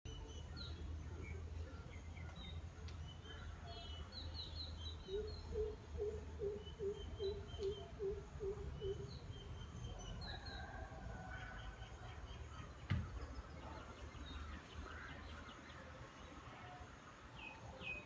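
Several birds chirping and calling, including a run of about ten low, evenly spaced hoots around the middle, over a steady low rumble. A single sharp knock about two-thirds of the way through.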